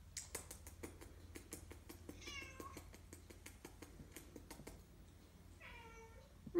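A cat meowing twice, two short meows about three seconds apart, with a run of light clicks over the first few seconds.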